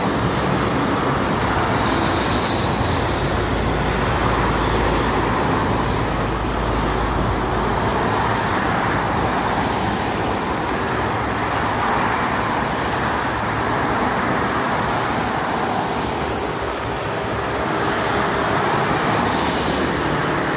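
Steady traffic noise from a multi-lane expressway: cars, buses and trucks passing at speed, with a deeper rumble for the first several seconds.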